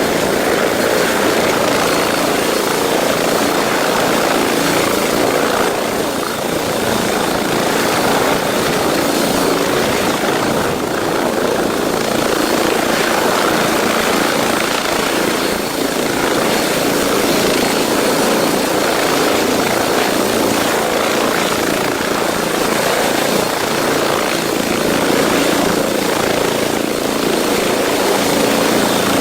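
Boeing CH-47 Chinook tandem-rotor helicopter running, its rotors and engines making a loud, steady noise.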